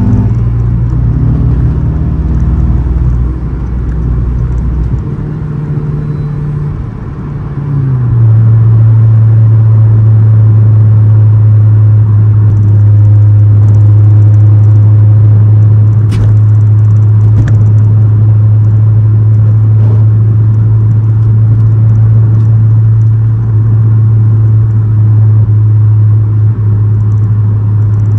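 Honda Civic Si's K24 four-cylinder with an aftermarket downpipe and exhaust, heard inside the cabin. Over the first several seconds its pitch and loudness shift, then from about eight seconds in it settles into a steady, loud, deep drone at constant cruise.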